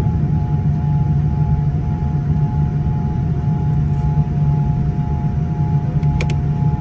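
Boeing 787-9 cabin noise on the ground with the engines running: a steady low rumble and hum with a steady whine above it. A brief click sounds about six seconds in.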